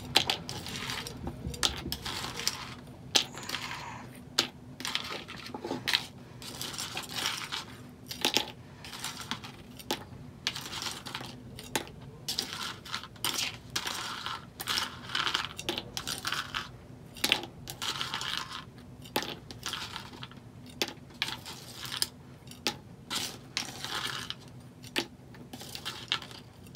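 Plastic spoon scooping goldfish crackers off a paper plate and tipping them into a plastic cup: a quick, irregular run of light clicks and scrapes, over and over.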